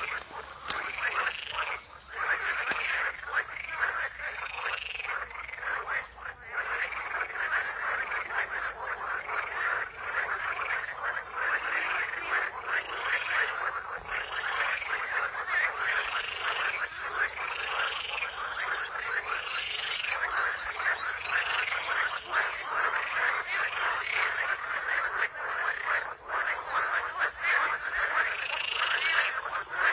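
A chorus of frogs croaking continuously, many rapid pulsed calls overlapping, with a louder call that rises and falls in pitch repeating about every two seconds.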